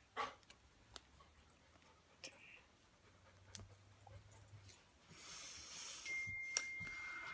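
Quiet room with a few faint clicks and taps from hands touching the face and chest while signing. About five seconds in a soft hiss sets in, and near the end a faint steady high-pitched tone starts.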